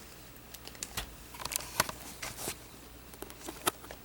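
Scattered small clicks and taps of handling in a quiet room, over a faint steady hum; the two sharpest come about two seconds in and near the end.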